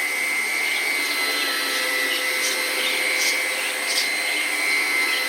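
Hoover ONEPWR cordless stick vacuum running steadily on carpet, a constant high motor whine over the rush of suction, with a few brief ticks in the middle.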